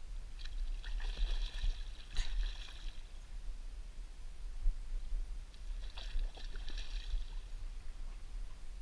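Hooked carp splashing at the water's surface at close range, in two spells: one about half a second in and lasting a couple of seconds, another around six seconds in.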